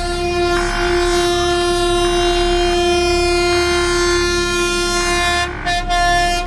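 Diesel freight locomotive's horn sounding one long, steady blast, broken briefly a little over five seconds in, with the engine running underneath.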